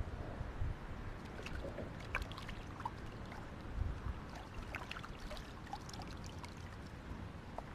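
Hands rinsing and sloshing in shallow lake water at the shore: small splashes and drips, with low wind rumble on the microphone.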